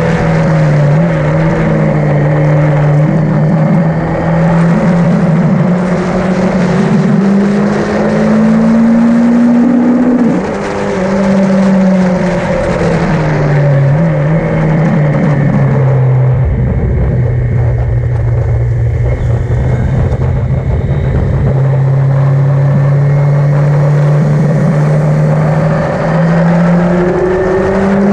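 Yamaha XJ900 motorcycle's inline-four engine running on track. Its note climbs, cuts briefly about ten seconds in, then falls to a lower steady pitch for several seconds and starts climbing again near the end.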